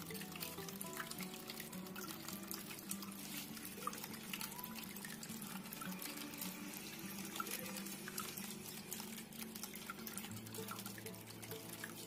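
Water trickling and splashing in a small tabletop waterfall fountain, a thin stream falling from a tilted clay pot into the bowls below, with many small drips. Soft background music with low sustained notes plays along.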